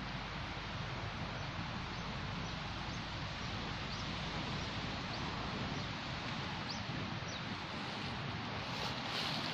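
Steady outdoor background noise, an even hiss, with a few faint, short, high chirps scattered through it and a brief rustle near the end.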